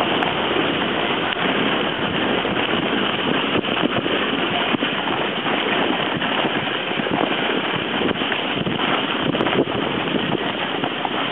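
Steady rushing hiss of a rider sliding fast over packed snow, with wind buffeting the microphone, as the camera travels down the run.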